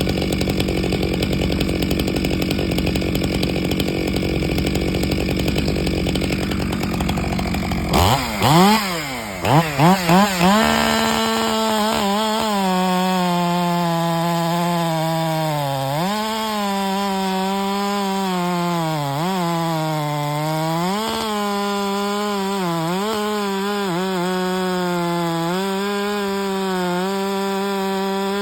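Ported Stihl MS462C two-stroke chainsaw with a new cylinder kit, still on its first tank and not yet broken in, cutting in red oak at high revs. About eight seconds in it gives a few quick blips of the throttle. It then runs at high revs again, its pitch dipping and recovering several times.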